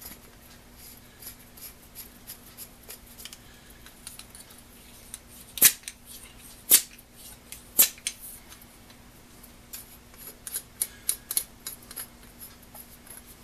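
Metal parts of a brass blowtorch pump being handled and fitted together: scattered light clicks and taps, three sharp clicks about a second apart midway, and a quick run of clicks near the end.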